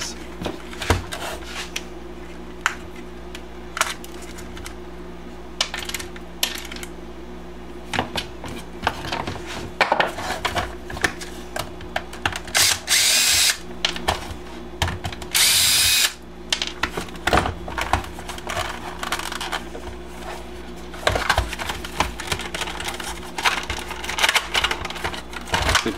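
Cordless drill-driver backing screws out of a plastic RC toy's case: two short runs of about a second each, around the middle, with a whining motor. Clicks and knocks of plastic parts being handled come between and around them.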